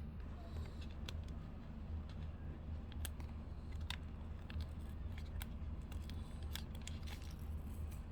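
Small cardboard blind box being handled and opened by hand: scattered light clicks and crinkles over a steady low hum.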